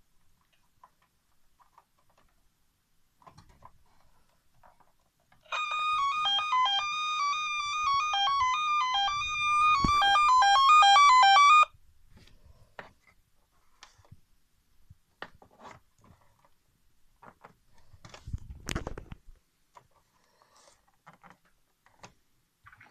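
Sound unit of a 1979 Fisher-Price Alpha Probe toy space shuttle playing an electronic beeping tune of quick stepped tones for about six seconds. The tune grows louder near its end and then cuts off abruptly. Light plastic clicks and knocks from handling the toy follow, with one louder thump.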